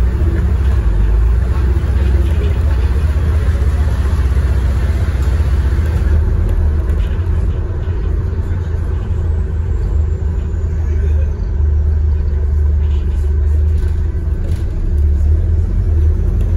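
Cabin noise inside an Alexander Dennis Enviro400H hybrid double-decker bus on the move: a steady heavy low rumble from the drivetrain and road, with a hiss of road noise above it, easing slightly about eleven seconds in.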